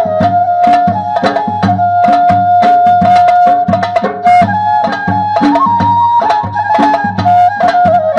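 Traditional folk-style music: a held melody line that steps and wavers in pitch, over quick, regular hand-drum beats.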